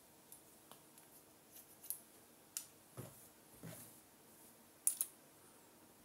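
Hairdressing scissors snipping through sections of hair: a series of short, crisp snips, two in quick succession about five seconds in. Between them come a couple of soft low knocks.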